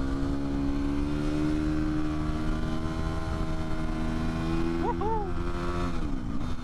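2017 Suzuki RM-Z250 supermoto's engine running under steady throttle while riding, its pitch creeping slowly up and then falling about six seconds in as the throttle is rolled off. A rider shouts 'Woohoo!' near the end.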